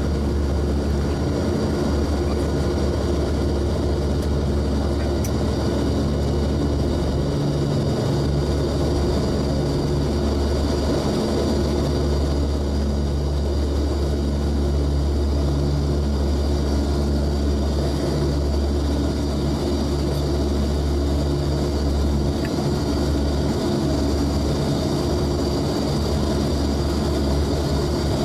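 Antonov An-12's four Ivchenko AI-20 turboprop engines at takeoff power, heard from inside the cockpit during the takeoff roll and liftoff: a steady, loud propeller drone with a deep hum.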